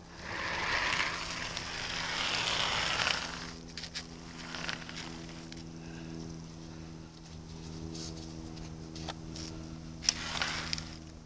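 Snow crunching and hissing as a hand-pushed model railroad snowplow, with a hand-bent aluminium plow shield, shoves through deep powder along the track. It is loudest for the first three seconds and again briefly near the end, with scattered small crackles and clicks between.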